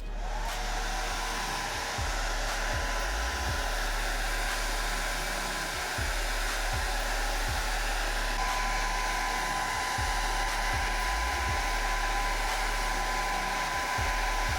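Steady, even hiss of rushing air noise with a faint low hum and a faint steady high tone under it.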